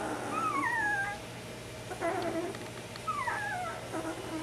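Ten-day-old Bernese Mountain Dog puppies squeaking and whimpering in complaint. Two long, wavering squeaks fall in pitch, one about half a second in and one about three seconds in, with a shorter, lower squeak between them.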